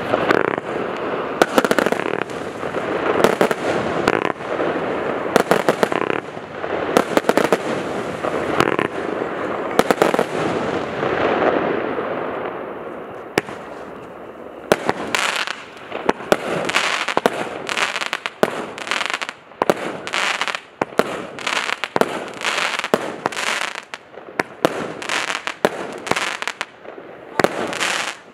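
Brutus Fireworks 280-shot compound fireworks cake firing: a dense run of launches and crackling bursts, easing off about twelve seconds in, then a quick, even series of shots about two a second.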